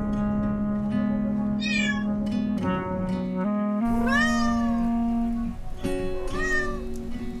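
Background music with held notes, over which a cat meows three times: once about two seconds in, a longer meow about four seconds in, and a short one near the end.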